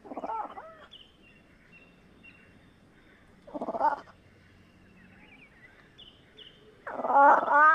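Fishing cat calling three times: short pitched calls that rise and fall, the third, near the end, the loudest and longest. Faint high bird chirps in the background between the calls.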